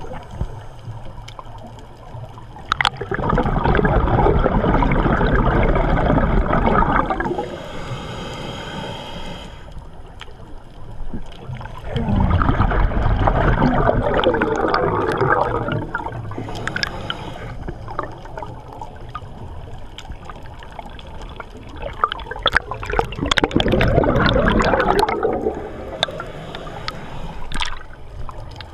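Scuba diver's regulator exhaust bubbling underwater: three long bursts of bubbles, each three to four seconds, about ten seconds apart, with quieter stretches between them.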